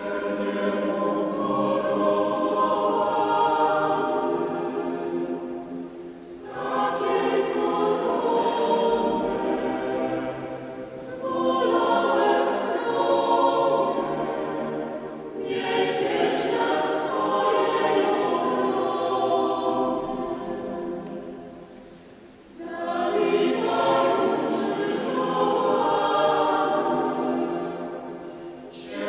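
Mixed a cappella choir of women's and men's voices singing a Polish Passion hymn, in sustained phrases with short breaks between them.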